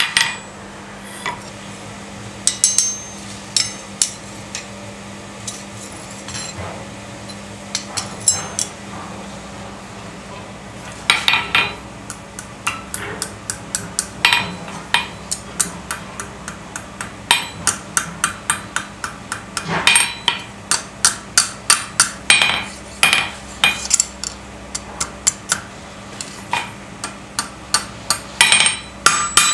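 Hand hammer striking red-hot steel on an anvil, curling the end of the herb chopper's handle into a scroll. The blows ring sharply: a few scattered strikes at first, then quick runs of several strikes a second from about eleven seconds in.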